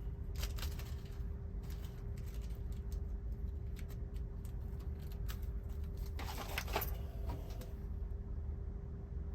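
Small parts containers being rummaged through by hand: scattered clicks and rattles, with a louder cluster about six and a half seconds in, over a steady low hum.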